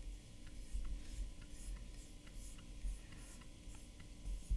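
Faint, irregular clicking of a computer mouse as a web map is dragged and zoomed, with a few soft low thumps.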